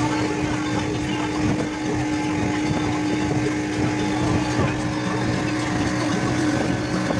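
Speedboat's outboard motor running steadily at speed, a constant drone with one steady tone, heard from under the boat's canopy.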